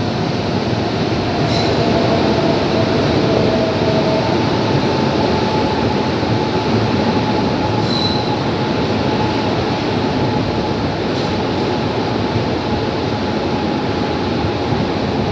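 Indian Railways passenger coach rolling along a platform, heard from its open doorway: a steady rumble of steel wheels on rail with a thin, drawn-out wheel squeal. Short high squeaks come about a second and a half in and again about eight seconds in.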